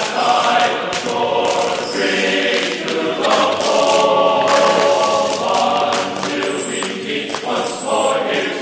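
Music with choir-style singing in long held chords, and short high falling sweeps near the start and again in the last few seconds.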